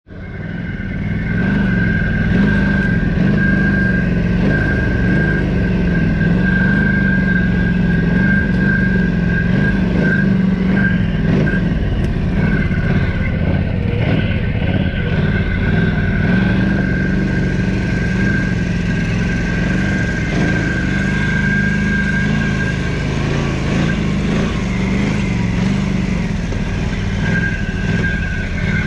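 Quad bike (ATV) engine running under changing throttle while riding off-road, with a steady high-pitched whine that drops out a couple of times.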